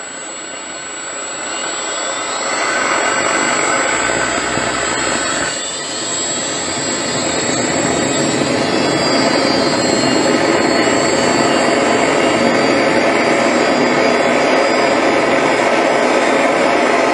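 A small homemade can-built jet engine spooling up, its whine rising in pitch over the first few seconds. After a brief dip about six seconds in, it settles into a steady loud roar with a high whine through its flaming exhaust.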